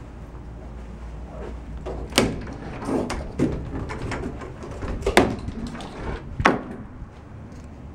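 Bifold closet door being handled and pulled open: a series of about five sharp knocks and clatters over a few seconds.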